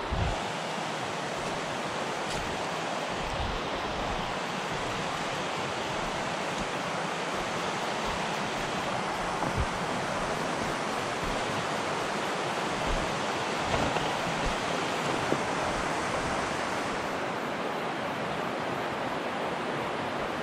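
Steady rush of river water running over rocks, with a few short low thumps on the microphone.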